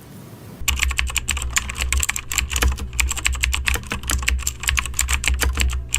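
Rapid typing on a computer keyboard, a fast run of key clicks starting about half a second in, over a steady low hum.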